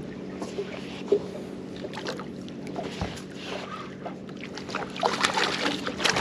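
Conventional level-wind fishing reel being cranked to reel in a striped bass, with clicks and taps from the reel and rod over a steady low hum from the boat. A louder rush of noise comes in about five seconds in.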